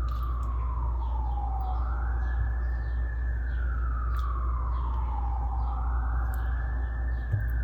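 Emergency vehicle siren wailing, its pitch rising and falling slowly about every four seconds, over a steady low hum.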